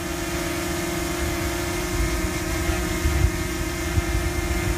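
DJI Mini 2 quadcopter hovering a few feet away: its propellers make a steady, even hum.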